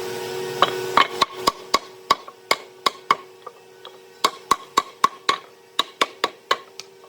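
A quick series of sharp, hard knocks on wood, about three to four a second with short pauses between runs, over a faint steady hum; a hissing noise stops about a second in.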